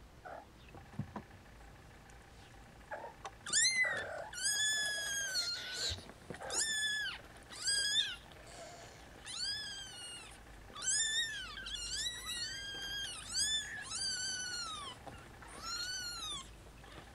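Snowshoe Siamese kittens, about two weeks old, mewing: about a dozen high, thin mews, each rising and then falling in pitch, coming roughly one a second.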